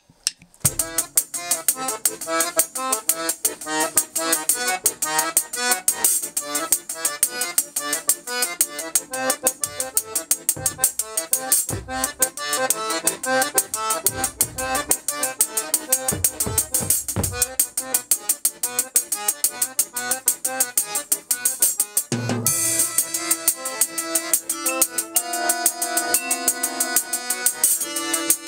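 Accordion and drum kit playing together: a quick, steady cymbal pattern with occasional bass-drum hits under an accordion melody. In the last quarter the accordion moves to louder held chords.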